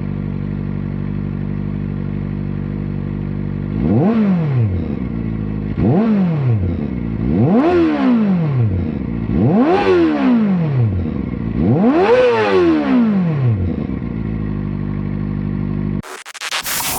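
Kawasaki ZX-4RR's inline-four with a slip-on exhaust idling, then blipped five times about two seconds apart, each rev climbing a little higher before falling back to idle. About a second before the end the engine sound cuts off abruptly to something different.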